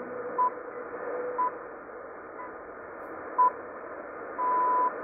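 BBC Greenwich Time Signal pips received over shortwave AM, marking the top of the hour: four short high beeps a second apart, then a longer final pip about four and a half seconds in. Steady static hiss from the shortwave reception runs underneath.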